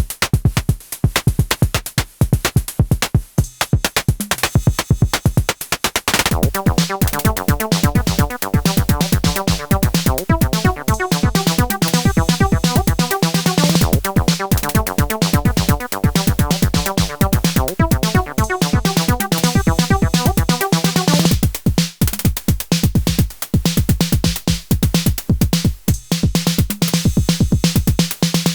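Acid techno at 128 bpm played on a Moog DFAM, Behringer CAT and Elektron Syntakt: a driving drum-machine beat throughout, with a pitched synth sequence and a steady bass note joining about six seconds in and dropping out again around twenty-one seconds.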